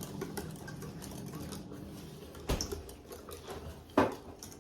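Kitchen handling noises: two sharp knocks about a second and a half apart, like things being set down on a counter, over a faint steady hum.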